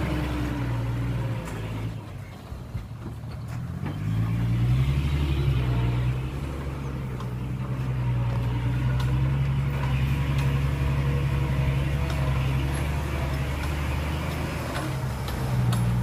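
Diesel engine of a dump truck loaded with soil, pulling slowly under load: it eases off about two seconds in, then picks up again from about four seconds and runs steadily.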